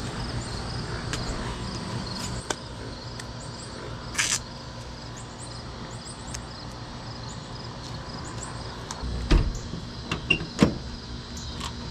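The glass rear hatch of a 1976 AMC Gremlin swung shut with a heavy thud about nine seconds in, followed by two sharper knocks as it is pressed down. There is a short scraping noise about four seconds in, and crickets chirp steadily in the background.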